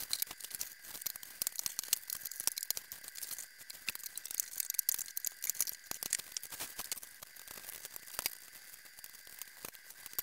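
Crackling and rustling of plastic wrapping and cardboard boxes being handled during unpacking, a dense run of small clicks and knocks.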